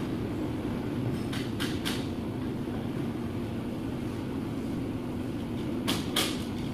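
Steady low machine drone in the background, with a quick run of three light clicks about a second and a half in and two more near the end, from hands working a rubber dust seal onto a cast-iron brake caliper's piston bore.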